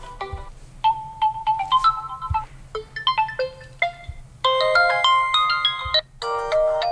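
Realme 9 Pro ringtones playing from the phone: bright melodic electronic chime tunes, with a brief break about six seconds in.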